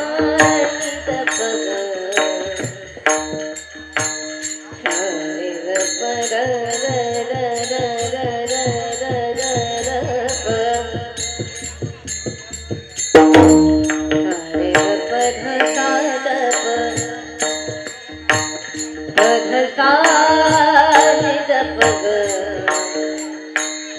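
A woman's voice singing a devotional kirtan melody through a microphone, accompanied by small hand cymbals struck in a steady rhythm, a drum and a sustained drone tone. The singing swells loudly about halfway through.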